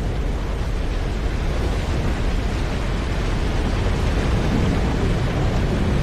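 Deep, steady rumble of a giant rogue wave bearing down, a film sound effect that grows slightly louder.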